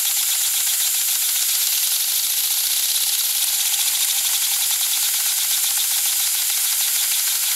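Small homemade aluminium-and-steel steam engine running fast on compressed air. Its piston and crank make a rapid, even mechanical clatter over a steady hiss of air.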